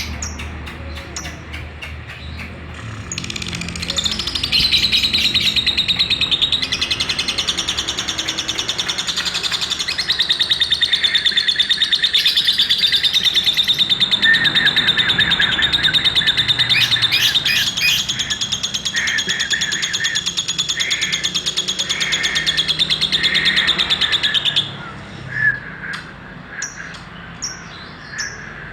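Lovebird singing its ngekek song: a long unbroken, very rapid high trilling chatter that begins a few seconds in, runs for about twenty seconds and stops suddenly, followed by a few short chirps.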